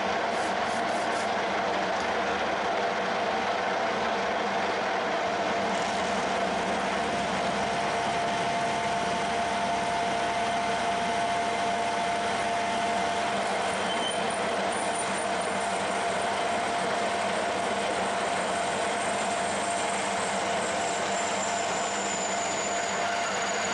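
Metal lathe running while a 20 mm twist drill cuts into the spinning plate: a steady machine hum with a constant tone. A faint high whine from the cut joins about halfway through.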